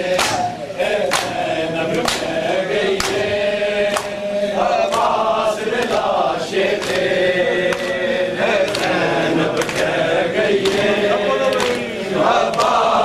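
A group of men chanting a Muharram nauha (lament) in unison while doing matam. Hands strike chests in an even beat about once a second.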